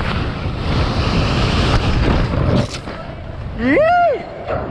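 Freefall wind rushing over a helmet-mounted camera's microphone during a BASE jump, easing off about three seconds in. Just before the end, a short whooping shout from the jumper rises and falls in pitch.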